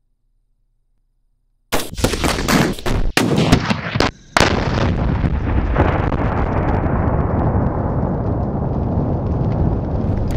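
Explosive charge detonating: a sudden loud blast about two seconds in, several more sharp blasts over the next two seconds or so, then a steady loud rush of noise whose high end slowly dies away.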